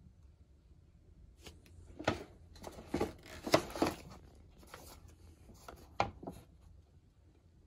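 Stiff paper shopping bag being tipped open and the paper wrapping inside handled: a run of uneven rustles and crackles, sharpest about two, three and six seconds in.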